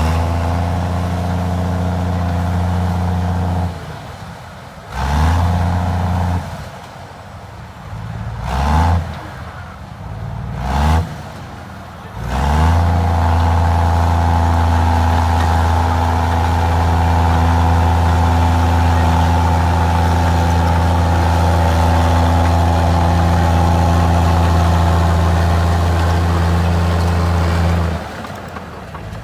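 Komatsu D53E bulldozer's diesel engine working: it rises and falls back several times in the first dozen seconds, then pulls steadily under load for about fifteen seconds before easing off near the end.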